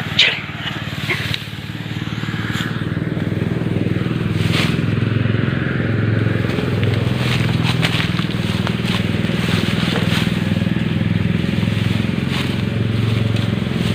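A small engine running steadily, with a low pulsing drone. Over it come short, scattered crunches of rice stalks being cut by hand with a sickle.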